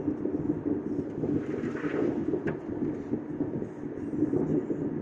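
Road and tyre rumble inside a car's cabin while driving on a rough, patched road, with one short faint click about two and a half seconds in.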